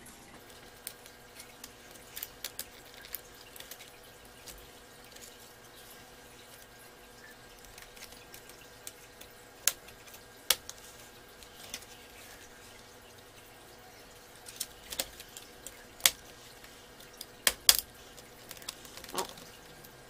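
Scattered sharp plastic clicks and knocks as the bottom cover of an MSI Wind U123 netbook is handled and pried off its plastic chassis, the clicks coming in small clusters with the loudest near the middle and toward the end.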